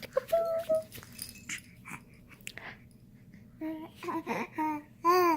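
A 15-week-old baby cooing and vocalising: a short high call about half a second in, then near the end a run of four short pitched coos in a row and one more just before the end.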